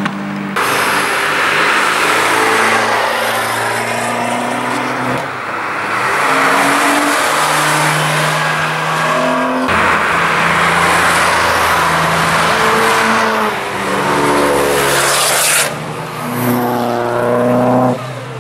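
Track cars and a motorcycle accelerating past through a bend, with engines revving up and dropping through gear changes over tyre and wind noise. The sound cuts abruptly several times from one passing vehicle to the next.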